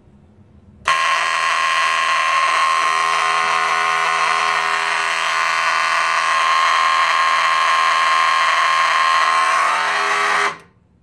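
Amseco BZ-54VT 12 V motor horn sounding a loud, steady alarm tone that starts about a second in: the BRK 2800 smoke detector has tripped in a smoke test and put the system into alarm. The horn cuts off suddenly near the end as the alarm is silenced at the panel.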